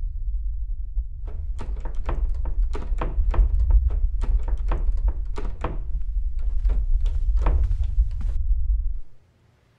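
Repeated, irregular knocking and thumping on a wooden door, about twenty blows, over a steady deep rumble. The rumble cuts off suddenly near the end.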